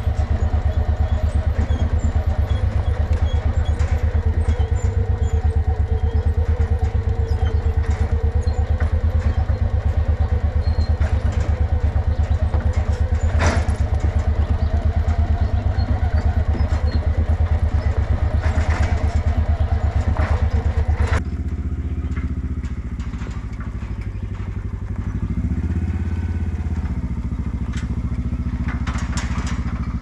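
The engine of the vehicle towing the sawmill trailer runs steadily with an even, fast pulse. A single clank comes about midway. About two-thirds of the way through, the engine drops suddenly to a lower, quieter running.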